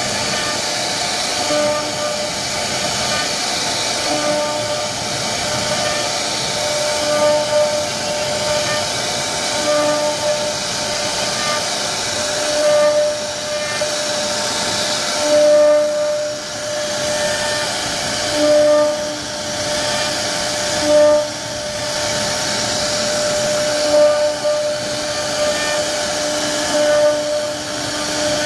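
CNC router spindle running with its bit cutting into a wooden board: a steady hiss and whine, with pitched hums that swell and fade every couple of seconds.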